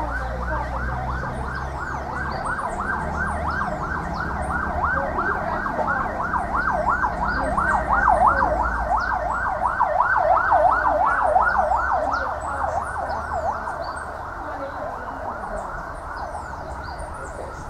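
A warbling siren, sweeping rapidly up and down about three times a second, growing louder toward the middle and then fading away.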